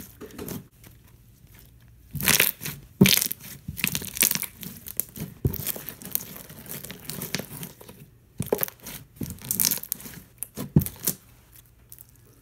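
Crunchy clear slime being squeezed and worked in the hands, giving irregular bursts of crackling, crunching clicks with short quiet gaps between them.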